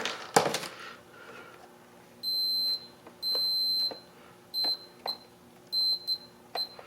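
Digital multimeter's continuity beeper sounding each time the electric unicycle's momentary power button is pressed, a high steady beep about seven times with uneven lengths, some held longer and some brief. Each beep shows continuity through the freshly resoldered switch and wires: the button is making contact on every press.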